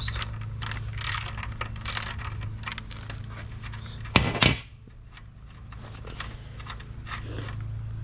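Small metal clicks and scraping as the rear axle nuts of an electric scooter are spun off and handled. About four seconds in there is one loud clank as the ratchet socket wrench is set down on the table. A low steady hum runs underneath.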